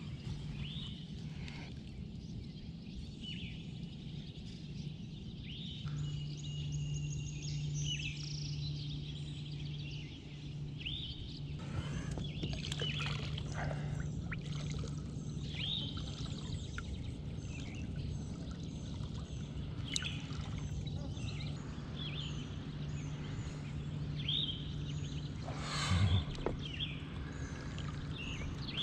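River water sloshing and splashing against a boat hull as a hand swishes through it, loudest about twelve seconds in and again near the end, over a low steady hum. Birds chirp on and off.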